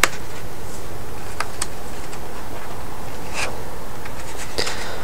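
Steady hiss of a recording turned up high for whispering, with a handful of soft clicks scattered through it.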